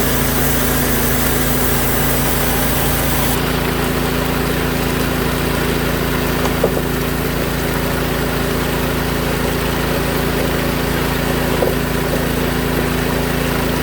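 Small engine-driven water pump running steadily, feeding water under pressure to a high banker sluice, with rushing water over it and a couple of faint knocks.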